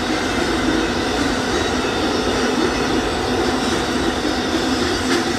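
Amtrak Auto Train's bi-level autorack cars rolling past on the rails: a steady, even noise of steel wheels on track.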